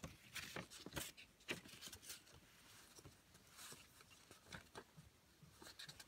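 Faint rustling and crinkling of a folded paper leaflet being handled, with irregular soft crackles throughout.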